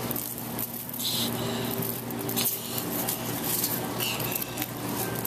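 Colored granules of stream-table gravel rattling and clicking as hands scoop and sweep them across the plastic tray, over a steady low hum.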